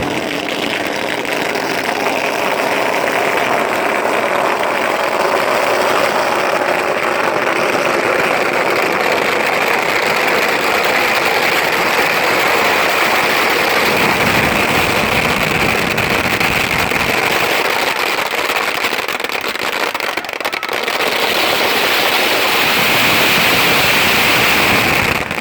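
Large log bonfire burning with a steady roar.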